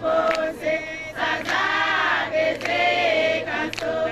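A group of voices singing together in chorus, with a few short sharp strikes among them.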